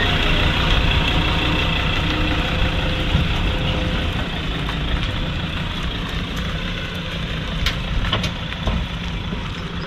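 A motor vehicle's engine running steadily: a low, even rumble with a hiss over it.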